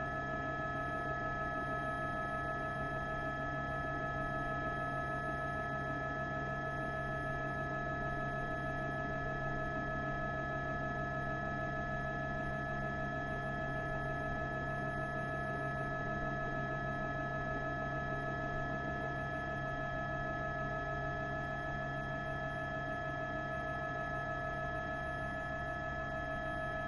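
A steady, unchanging hum made of several constant tones, with no breaks or variation.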